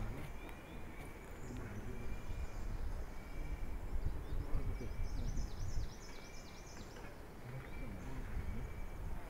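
Outdoor field ambience: a bout of quick, repeated high chirping, typical of small birds, over a low rumble, with a few faint distant voices.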